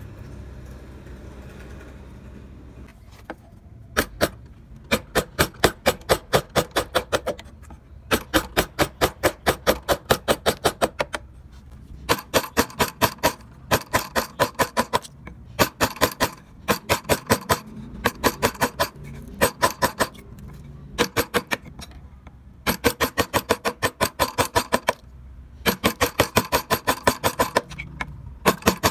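Quick runs of sharp taps from a mallet driving a carving gouge into wood, about five strikes a second, each run lasting two to three seconds with short pauses between. The tapping starts a few seconds in, after a stretch of low background noise.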